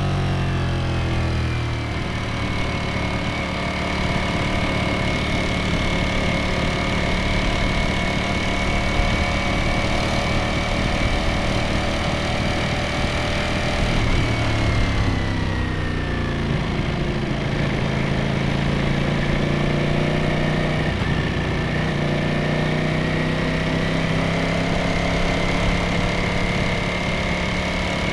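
Ducati Streetfighter V4S's 1103 cc V4 engine and exhaust running under way. The engine note falls in the first two seconds, holds at a steady cruise, drops again around halfway through, then slowly climbs near the end.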